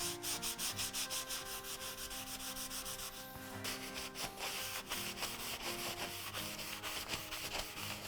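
Wood being hand-abraded with quick, even back-and-forth strokes, several a second. After about three and a half seconds the strokes run together into steadier rubbing.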